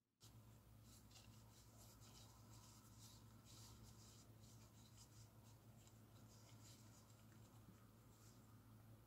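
Faint rustling and rubbing of nitrile-gloved hands turning a bread-wrapped sausage roll in beaten egg in a glass dish, over a steady low hum.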